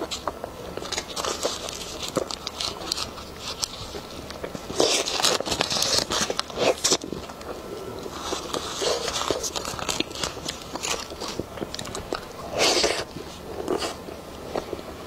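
Close-miked eating sounds: a person biting into and chewing a soft persimmon-shaped dessert, with wet mouth and lip noises. Louder bites come about five, nine and thirteen seconds in.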